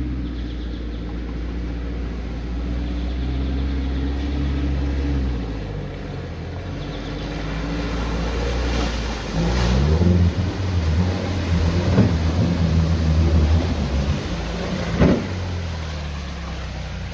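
Car engine running while driving: steady low engine note for the first half, then revs rising and falling with gear changes from about halfway, with a few sharp knocks in the second half.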